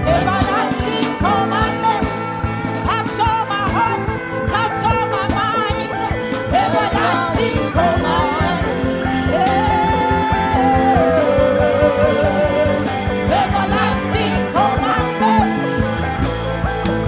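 Live gospel worship music: a band accompaniment with steady bass, and a voice singing a drawn-out melody with vibrato over it.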